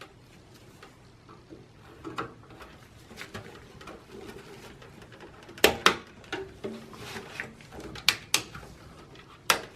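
Memory modules being pressed into the motherboard's DIMM slots: a handful of sharp clicks as the slot retention latches snap shut, with quieter handling rustle between them.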